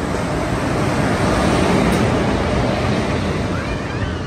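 Indian Railways express train pulling into a station platform behind an electric locomotive. The locomotive and wheels rumble loudly on the rails, building to a peak about two seconds in as the locomotive passes close by, then easing a little.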